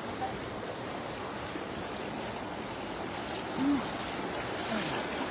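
Shallow running water rushing and splashing steadily around a man's boots as he wades through it in rubber waders. A short voice sound breaks in a little past halfway.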